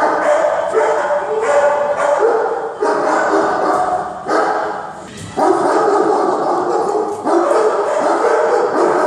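Many kennelled dogs barking and yelping at once, with a brief lull about five seconds in.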